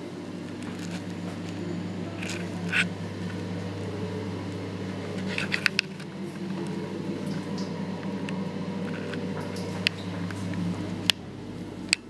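A steady low electrical hum breaks off about eleven seconds in. Sharp clicks and knocks from a metal lever door handle and from the camera being handled come in small clusters, around two to three seconds in, near six seconds, and near the end.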